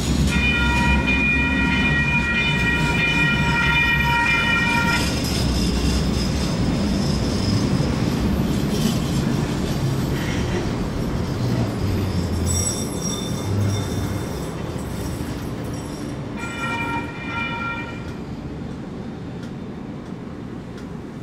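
Light rail trains passing through a grade crossing: a train horn sounds one steady note for about five seconds at the start, then the cars rumble by with a brief high wheel squeal about twelve seconds in, and the horn sounds again, shorter, a few seconds later. The rumble fades as the trains move off.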